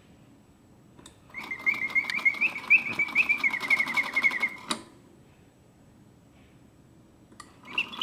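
Early-1970s Karl Griesbaum double singing bird cage whistling its mechanical bird song: a click, then about three and a half seconds of warbling, chirping trills over the whirr of the clockwork. The song cuts off suddenly and, after a pause of a few seconds, starts again near the end, as the cage's pause setting intends.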